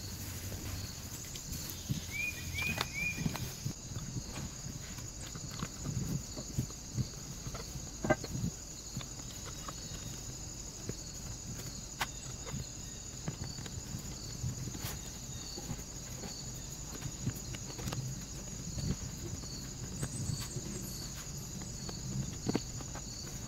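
Scattered light knocks, taps and clicks of plastic and metal as an electric knapsack sprayer's pump unit is handled and screwed back into its housing, over a steady chorus of crickets chirping.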